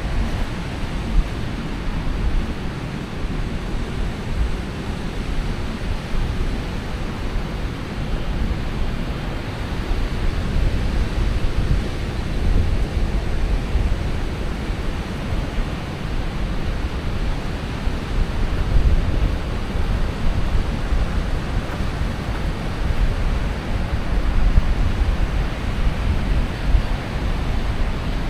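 Ocean surf washing steadily onto a sandy beach, with wind buffeting the microphone in low rumbling gusts.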